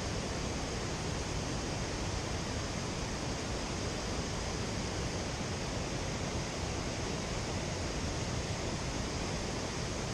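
Steady rush of water falling over a river waterfall, an even roar with no breaks.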